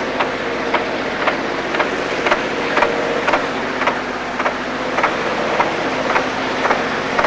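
A train passing close by: a steady rumble with a low engine hum and sharp clicks repeating evenly, a little under twice a second.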